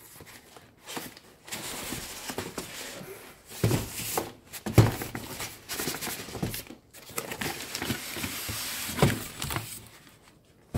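Cardboard boxes scraping and rubbing against each other as a heavy box is dragged out of a larger carton, with several dull thumps as it is handled.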